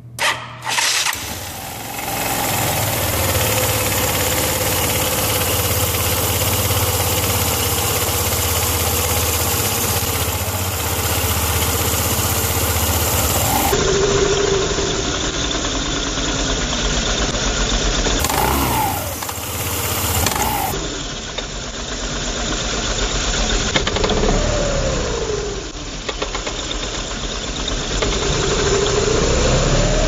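2009 Yamaha Zuma 125 scooter's single-cylinder four-stroke engine starting and then running with its CVT cover off, revved up and back down a few times in the second half. Its worn, stretched V-belt is slapping on the pulleys, which the owner blames for vibration and rough acceleration from idle.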